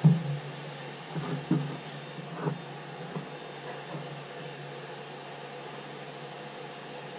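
Creality CR-10 3D printer's cooling fans running as a steady hum with a faint steady tone, with a few knocks and thumps from handling in the first three seconds.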